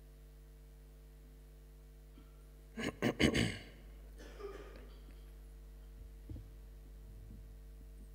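Steady low electrical hum from the sound system, with a short burst of rustling and knocks about three seconds in as a seated person shifts position close to the microphone, then a fainter rustle.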